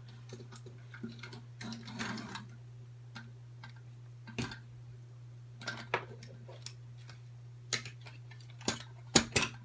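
Scattered small clicks and taps of plastic headphone parts and tiny screws being handled during disassembly, with a few louder clicks near the end, over a steady low hum.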